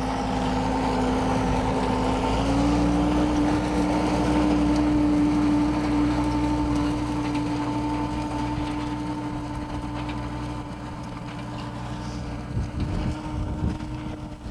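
John Deere tractor's diesel engine running steadily as it pulls a three-point-hitch soil sampler through corn stubble. Its pitch steps up slightly a couple of seconds in, and the sound fades somewhat after the middle, with a few low thumps near the end.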